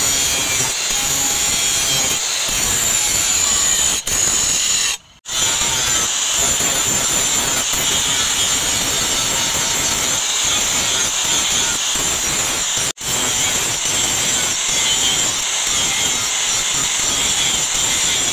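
Power tool running steadily under load, a continuous grinding hiss with two brief breaks, about five seconds in and again around thirteen seconds.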